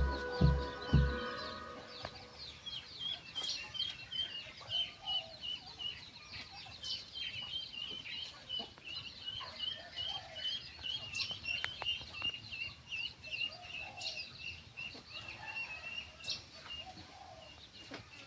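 Birds chirping: long runs of short, high notes repeated several times a second, with lower calls now and then. Music with a beat ends about a second in.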